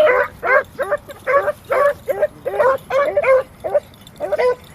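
Beagle hounds yelping on a rabbit's scent: short, high, rising-and-falling yelps, about three or four a second in a steady run, with a brief pause near the end.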